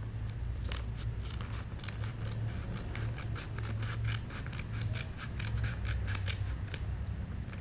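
A blind bag being opened by hand: a quick run of short, crisp snips and crackles lasting about six seconds.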